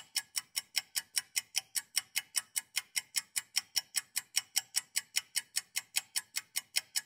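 Steady mechanical-style ticking, about five crisp, evenly spaced ticks a second, like a fast timer.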